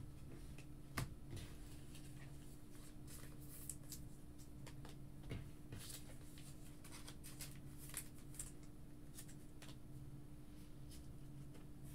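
Faint clicks and rustles of trading cards in rigid plastic top loaders and sleeves being handled and set down on a table, the sharpest click about a second in, over a steady low hum.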